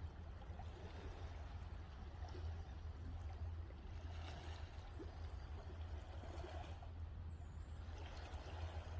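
Small waves washing and trickling on a beach, swelling about four seconds in and again near the end, over a steady low rumble.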